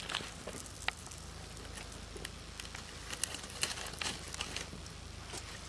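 Puris frying in hot oil, with scattered crackles and small pops over a faint steady sizzle.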